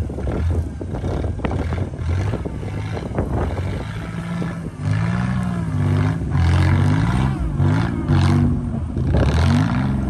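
A stuck SUV's engine revving up and down several times from about halfway through, as the vehicle, bogged in deep snow, is pulled out on a line. Wind buffets the microphone in the first few seconds.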